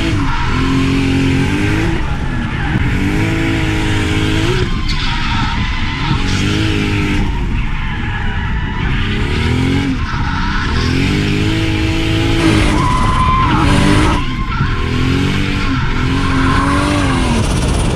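Turbocharged Toyota 2JZ-GTE straight-six in a Toyota Chaser, revved up and falling back again and again, about every two seconds, with tyres squealing as the car drifts.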